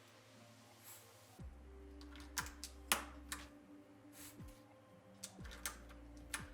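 Plastic keycaps being pressed onto a mechanical keyboard's switch stems, likely Gateron brown switches: a series of sharp, irregularly spaced clicks, several close together two to three seconds in.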